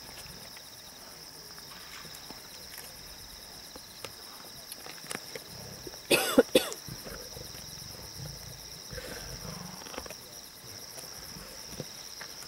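Crickets chirping steadily in the night bush, with a short, loud double burst about halfway through.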